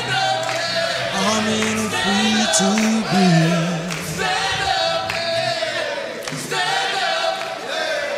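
A choir singing sustained, held phrases, with a low voice carrying long notes under the group for the first few seconds.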